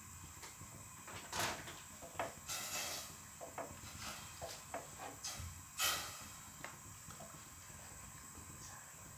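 A silicone spatula stirring palm sugar syrup in a stainless steel pot, knocking and scraping against the pot with a series of short, irregular clicks; the loudest knocks come about a second and a half and six seconds in.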